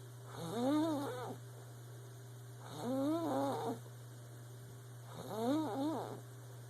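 Squeaky snoring: three wavering, squeaking snores, each about a second long and about two and a half seconds apart, over a steady low hum.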